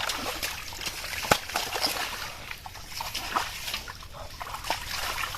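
Irregular small splashes and sloshing of hands working through shallow muddy pond water while catching fish by hand, with one sharper click about a second in.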